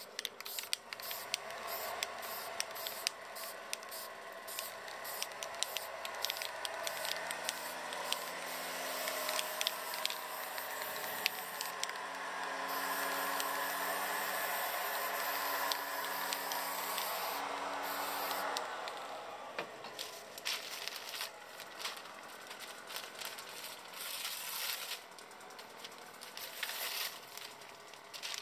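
Aerosol spray paint can hissing in long passes, with scattered sharp clicks. A leaf blower drones steadily in the background from about seven seconds in, and both fade out at about nineteen seconds.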